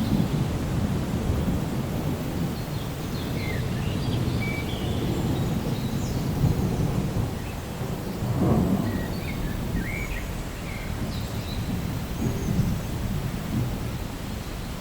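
Rain falling steadily with low rolling thunder, the rumble swelling about eight seconds in. A few faint high chirps sound here and there.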